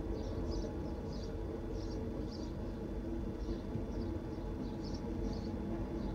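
BNSF intermodal freight train passing with a steady low rumble. A small bird chirps over and over above it.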